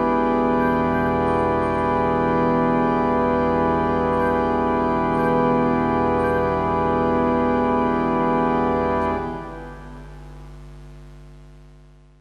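Pipe organ holding a full sustained chord over a low pedal note: the closing chord of a variation. About nine seconds in most of the chord is released, and the remaining low tones fade away over the last few seconds.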